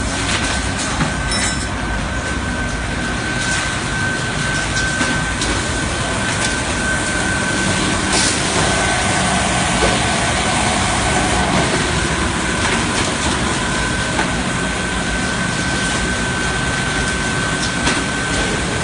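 Factory machinery running steadily on a cutting-disc production floor: a constant mechanical din with a steady high whine and scattered clicks and knocks.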